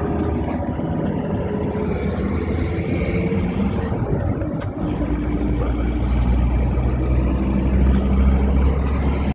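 Steady rumble of road and engine noise heard from inside a moving car, growing deeper and a little louder about five seconds in.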